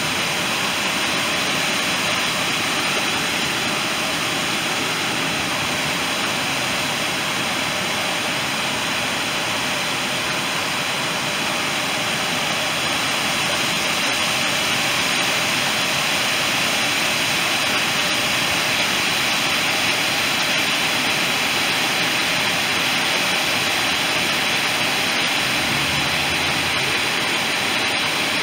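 Water spilling over a concrete spillway dam and churning into the river below: a steady, loud rushing.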